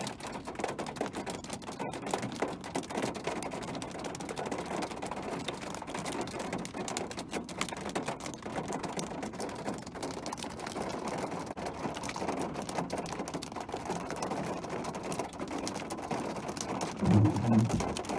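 Hail coming down hard: a dense, rapid clatter of small hailstones striking the pavement. A brief louder low thump comes near the end.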